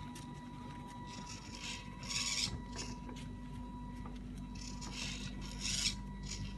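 Small electric gear motors of a robot car running steadily, with a few short rasping bursts about two seconds in and again around five to six seconds in.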